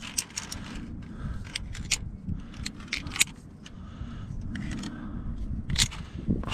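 Via ferrata lanyard carabiners clicking and clinking against each other and the steel cable as they are handled and clipped, a string of short metallic clicks, loudest about three seconds in, over a low rumble.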